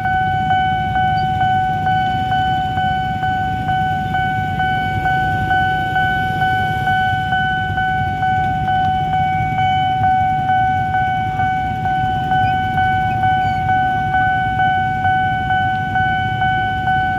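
Electronic railway level-crossing warning bell ringing continuously, a steady tone struck over and over at a little under two strokes a second, signalling an approaching train.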